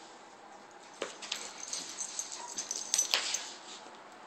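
A Maltese puppy and a second dog tussling over a plush teddy bear: a run of rustles and clicks begins about a second in and is loudest just after three seconds. A short, faint dog whine comes midway.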